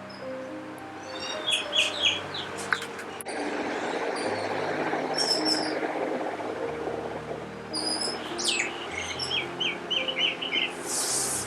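Parrot calling in two quick runs of short, sharp chirps, one early and one later, over soft background music of held notes.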